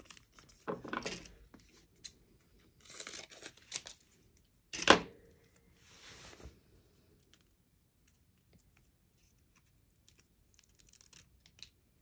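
Rub-on transfer film and its backing being handled and torn apart by hand: several short tearing rustles. The loudest and sharpest comes about five seconds in, and faint small ticks follow near the end.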